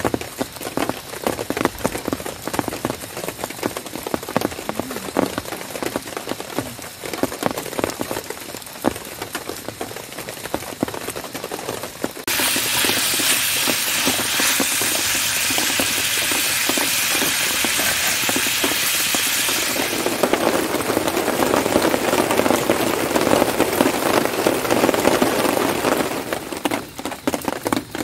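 Rain pattering with scattered drips, then an abrupt change to a steady loud hiss from a pan cooking on a portable gas stove as it is stirred with a wooden spatula. The hiss turns lower in tone about eight seconds later and falls away near the end.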